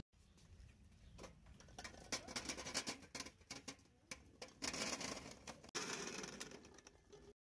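Kumquats tumbling from a stainless steel pot into a perforated steel steamer tray: a rapid patter of small fruit knocking on metal, heaviest in two spells past the middle, cutting off suddenly just before the end.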